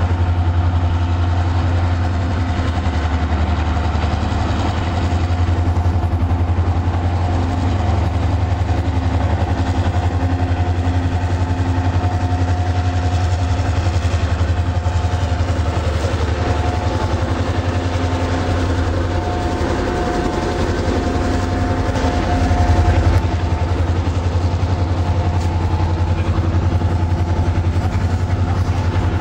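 Diesel-electric freight locomotive's engine running as it hauls a train of covered hopper cars past, a steady low drone with fainter steady tones above it.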